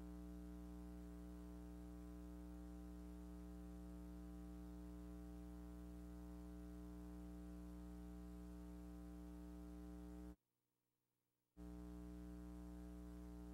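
Steady, faint electrical mains hum with a stack of even overtones, unchanging, cutting out to silence for about a second roughly ten seconds in.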